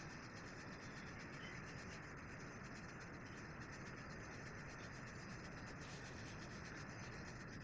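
Faint steady hiss of background noise, with no distinct events.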